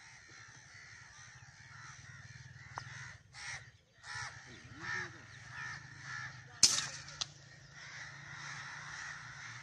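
Crows cawing again and again from a flock. About two-thirds of the way through there is a single sharp crack, the loudest sound, and a fainter click follows about half a second later.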